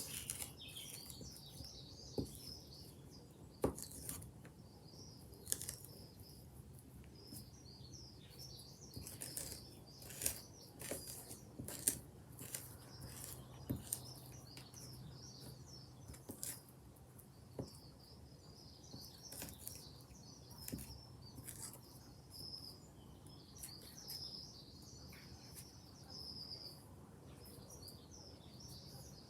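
Garden birds chirping and singing, with scattered light taps and clicks of a spoon crushing flower petals onto paper.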